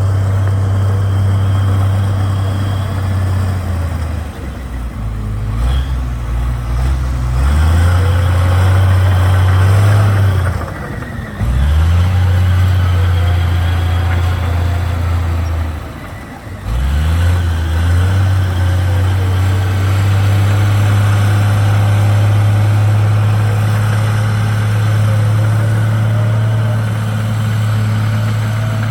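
Heavy diesel engine of earthmoving machinery running hard with a steady low drone. Twice in the middle its revs drop sharply and then climb back.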